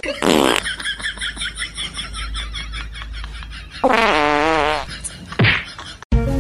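Comic fart sounds: a long, rapid fluttering one, then a louder wavering one about four seconds in, with short falling sweeps at the start and near the end.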